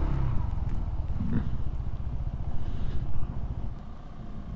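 Honda PCX 160 scooter's single-cylinder engine running at low riding speed, with a steady low rumble of wind on the microphone that eases off toward the end.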